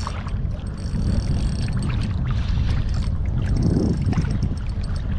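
Wind rumbling on the microphone and water lapping at the shoreline rocks, with the intermittent high whir of a Daiwa BG2000 spinning reel being cranked to bring in a hooked fish.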